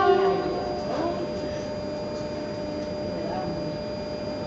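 Electric commuter train standing at a station platform, giving out a steady electrical hum with a thin high whine above it. A loud pitched tone cuts off just after the start, with faint voices in the background.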